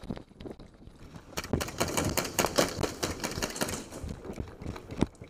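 Gas blowback airsoft guns firing rapid strings of shots, a fast clatter of sharp clacks that starts a little over a second in and lasts about two and a half seconds. A single sharp crack follows near the end.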